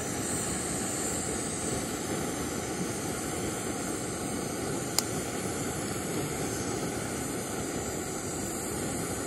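A steady rushing noise, even and unchanging, with a single sharp click about halfway through.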